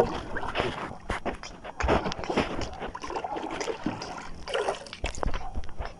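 Water lapping and trickling against the hull of a small boat, with scattered short knocks and clicks.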